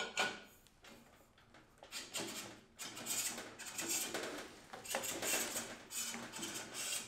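A hollow shifter kart axle sliding by hand through its rear axle bearings: a single click near the start, then from about two seconds in a run of irregular scraping and rattling of metal on metal as the axle is pushed through.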